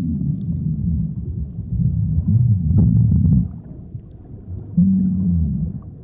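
Chorus of Nassau groupers recorded underwater: many overlapping low grunts and calls, loud and dense, easing for a moment before a longer steady low call near the end. This is the courtship chorus at its crescendo, just before the aggregation spawns.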